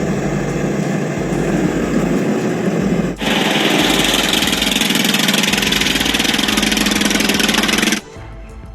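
A vehicle engine running steadily and loudly. About three seconds in the sound cuts abruptly to a louder, brighter engine sound, which cuts off near the end.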